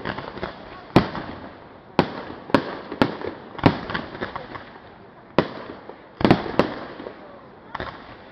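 Fireworks display: shells bursting in a string of sharp bangs at irregular intervals, about one every half second to second, with crackling between them.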